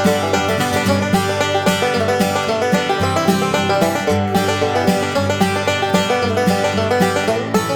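Background music: an upbeat plucked-string tune in a bluegrass style, with quick, steady picked notes.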